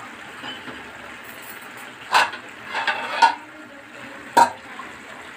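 Sharp clinks and clatter of a utensil against a metal cooking pan: one about two seconds in, a cluster around three seconds, and one more near the end. Under them runs a faint steady hiss from the hot pan.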